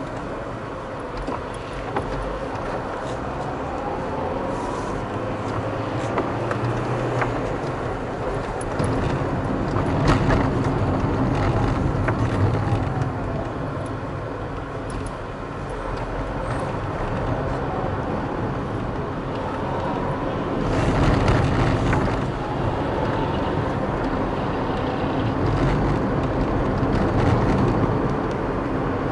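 A car driving through city traffic: steady engine and tyre-on-road noise, with the engine note rising and falling as the car speeds up and slows. It grows louder twice, about a third of the way in and again past the middle.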